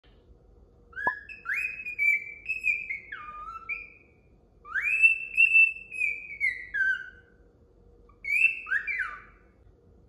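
Male cockatiel singing: three phrases of clear whistled notes that glide up and down, separated by short pauses.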